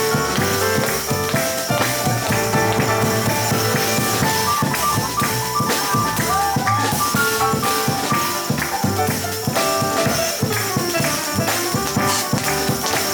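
Live jazz trio playing instrumentally: piano, double bass and drum kit, with a steady shimmer of cymbals over the bass and piano notes.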